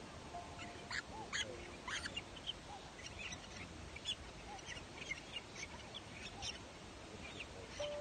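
A nest of cormorant chicks calling: many short, high-pitched squeaky calls, scattered irregularly and overlapping.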